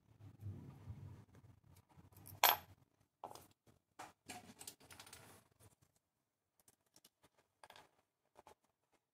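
Small metal parts and a small screwdriver being handled and set down on a wooden workbench: one sharp clack about two and a half seconds in, then a run of lighter clicks and taps, and a few more small clicks near the end.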